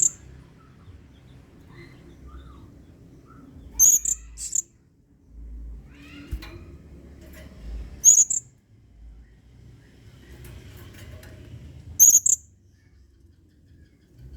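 Blue-crowned hanging parrot (serindit) giving short bursts of sharp, very high-pitched calls, about every four seconds, with faint softer chirps between.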